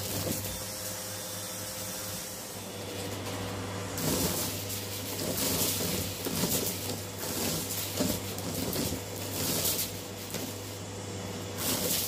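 Hoover Breeze Evo upright vacuum cleaner running on its extension wand, a steady motor hum. From about four seconds in, sequins and confetti rattle up the wand in repeated short bursts of hiss as they are sucked in.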